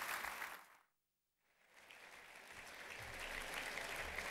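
Audience applauding. About a second in the sound cuts out completely for roughly half a second, then the applause comes back softly and builds gradually.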